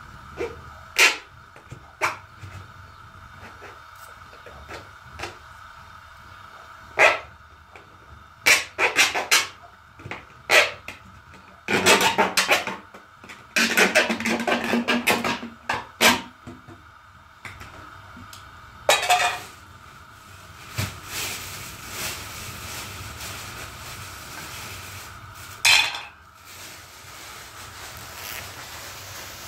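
Cooking sounds: metal pots and utensils clinking and knocking, with two stretches of dense clattering or scraping about twelve to sixteen seconds in, then a steady hiss.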